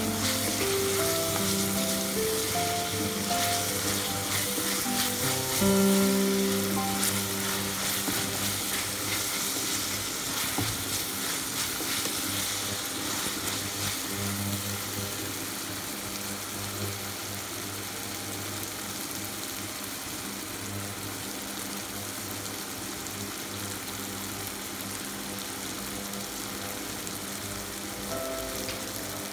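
Chopped onions, tomatoes and green chillies sizzling in hot oil in a frying pan while a wooden spatula stirs them. Soft background music runs under the sizzle over the first half, then fades.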